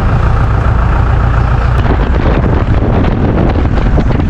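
Steady engine and road noise of a jeep-style shared taxi driving along, heard from inside the cab.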